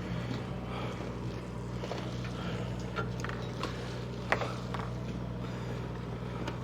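Fishing boat's engine running with a steady low hum, with scattered knocks and clatter on deck. The sharpest knock comes about four seconds in.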